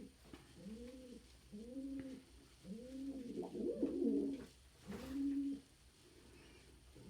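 Domestic pigeons cooing: a run of low coos, each rising then falling in pitch, about one a second, with two birds overlapping about halfway through.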